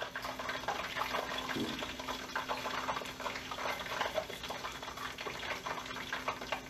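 Hot oil sizzling and crackling in a deep pot as food is lowered in to deep-fry, a dense run of fine pops over a steady low hum.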